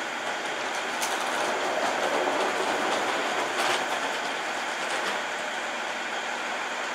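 Train running noise: a steady rushing hiss that swells for a few seconds in the middle, with a few sharp clicks.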